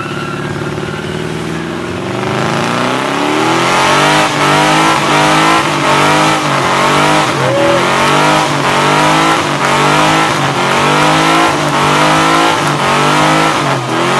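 Pontiac GTO's V8 running steadily, then climbing about two seconds in into a burnout. The engine revs hard, its pitch rising and falling over and over, while the rear tires spin and smoke on the pavement.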